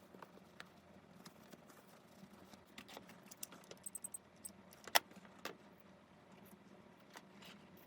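Light, scattered clicks and taps of small hard objects being handled, bunching together about three to four seconds in, with one sharper click about five seconds in.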